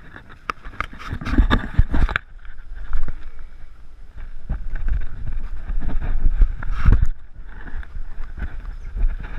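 Rumbling wind and handling noise on a chest-mounted action camera's microphone, with a run of sharp clicks and rustles in the first two seconds and another brief burst about seven seconds in.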